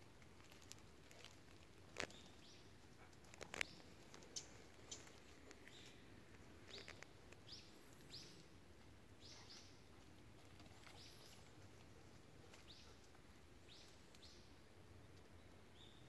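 Faint woodland quiet broken by a few sharp snaps and crackles of dead twigs as a golden retriever pushes through dry branches and leaf litter, the loudest about two and three and a half seconds in. Short, high bird chirps follow, repeating through the second half.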